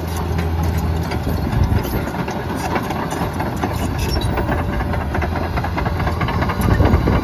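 John Deere 950J crawler dozer's Liebherr diesel engine running, growing louder at the start, with a steady low drone and many rapid metallic clicks and knocks over it.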